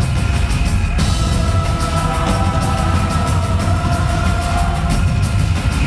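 Live band playing loud rock music: a steady, driving drum beat and heavy bass under held melodic notes, recorded from within the crowd.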